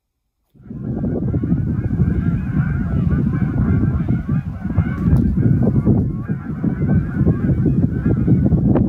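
A large flock of wild geese flying over in long V skeins, many birds honking at once in a dense, overlapping chorus that starts about half a second in, over a steady low rumble.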